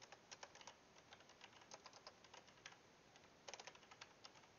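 Faint typing on a computer keyboard: quick runs of keystrokes with short pauses, and a fast flurry about three and a half seconds in.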